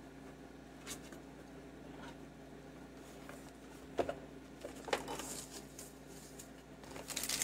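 Cardboard box being unpacked: a small knife cutting the tape, then the flaps opened, with a few sharp taps of cardboard about a second in and around four and five seconds. Bubble wrap and plastic packaging crinkle briefly around five seconds and again near the end, over a faint steady hum.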